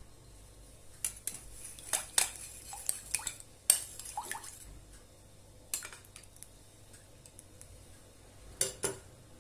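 Spoon clinking and scraping against a glass bowl while stirring tomato paste into water for a sauce, in irregular taps, with a double knock near the end.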